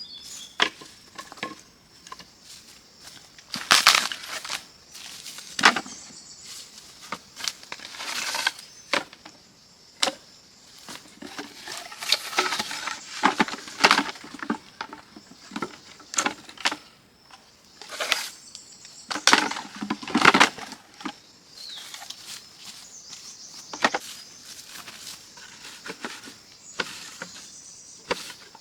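Irregular knocks, taps and rustling, clustered in several short runs, over a steady high-pitched hiss.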